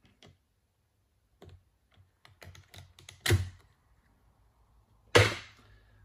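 Light clicks and taps of fingers on a laptop's opened internals, then two sharp snaps, one about three seconds in and a louder one near the end, as the thin metal shield over the RAM slots is pried off.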